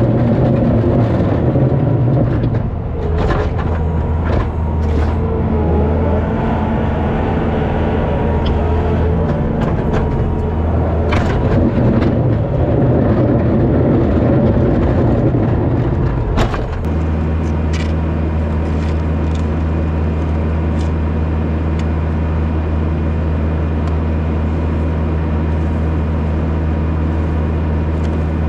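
Skid-steer loader's engine running loud and steady, with knocks and clanks and a changing engine note through the first half. About two-thirds of the way in it changes suddenly to an even, unbroken drone.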